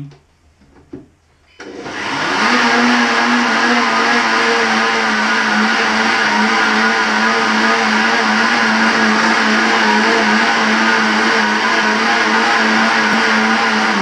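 Countertop jug blender starting up about a second and a half in, coming quickly up to full speed and running steadily with a constant motor hum under the whirr as it blends soaked canary seeds and water into seed milk.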